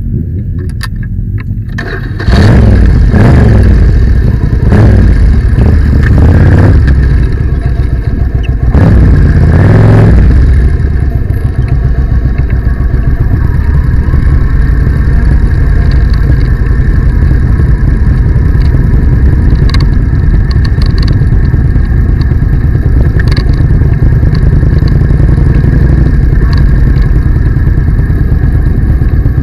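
Motorcycle engine heard close up from the rider's own bike. After a quieter couple of seconds it suddenly gets loud, and the revs rise and fall several times as it pulls away. For the rest of the time it runs steadily at low riding speed.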